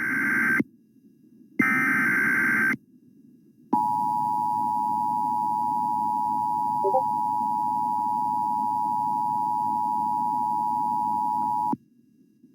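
Emergency Alert System SAME header: one warbling data burst ends and a second, about a second long, follows after a short pause. Then comes the two-tone attention signal, a steady dual-pitch tone held about eight seconds that cuts off sharply, announcing a new alert.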